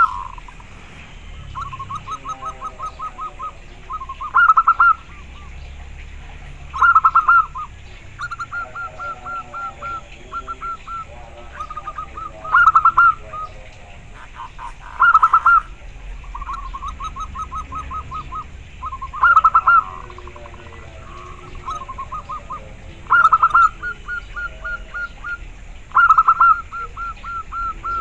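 Zebra dove (perkutut) singing its cooing song: loud phrases every two to four seconds, each joined to a quick string of short, rapid coos, with fainter lower notes between the phrases.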